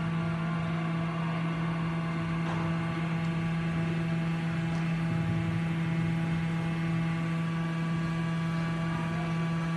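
A steady low hum that does not change, with a row of fainter higher overtones above it.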